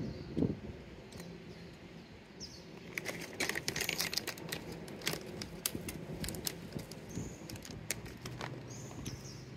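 A cat eating off a ledge: a run of quick, crisp chewing and licking clicks, densest in the middle and thinning out toward the end.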